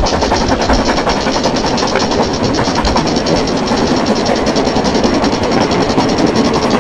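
Ride-on miniature railway train running along the track: a fast, even, rhythmic clatter of the locomotive and its wheels on the rails.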